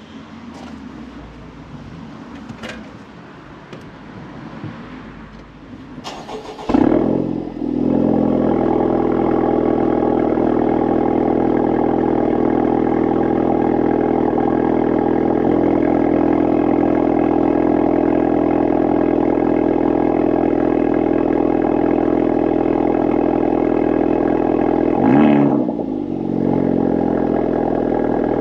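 Honda Civic Type R FK8's 2.0-litre turbocharged four-cylinder, breathing through a Milltek non-resonated race cat-back exhaust. After a few faint clicks it starts about six seconds in with a loud flare, then idles steadily. Near the end it is blipped once, the pitch rising and falling, then it settles back to idle.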